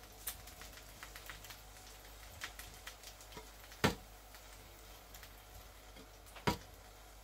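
Light clicks and taps of a pastry brush and kitchen utensils while oil is brushed over roast potatoes on the oven's trivet, with two sharper knocks, one about four seconds in and one near the end.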